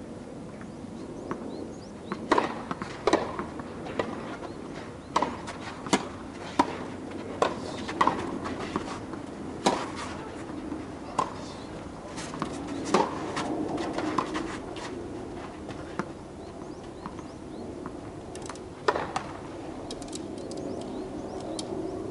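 Tennis ball being struck by rackets and bouncing on the court during a rally: sharp pops about a second apart, then a lone pop later on.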